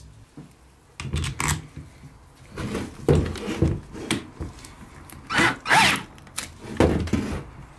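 Gloved hands fitting a wooden tool handle into a cordless drill's keyless chuck: irregular clicks, knocks and rubbing of plastic and wood, starting about a second in, with a brief squeak near the end.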